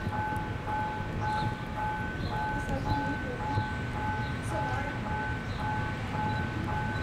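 Distant diesel locomotive approaching slowly, its engine a low rumble, with a steady high two-note tone sounding over it, the lower note breaking off about twice a second. Short bird chirps come and go.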